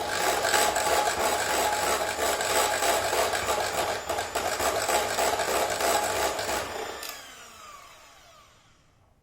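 Electric mixer beating icing at speed to bring it up to peaks, then switched off about seven seconds in and winding down with a falling whine.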